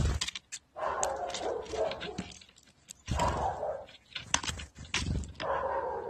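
A dog giving three drawn-out whining calls of about a second each, with sharp knocks between them.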